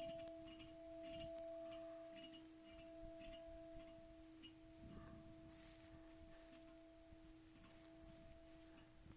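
A faint, lingering ringing tone at two pitches an octave apart, slowly fading away, the tail of something struck that rings like a bell.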